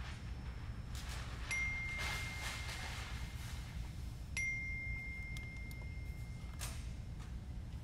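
An electronic beeper sounds two long, steady, high single-tone beeps, one about a second and a half in and one about four and a half seconds in. Each starts with a small click and lasts a couple of seconds, over a steady low electrical hum.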